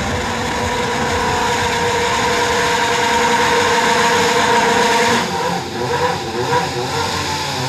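Formula One car's 2.4-litre V8 engine at high revs: a steady high-pitched scream that builds in loudness, then drops away suddenly about five seconds in, leaving lower, uneven engine noise.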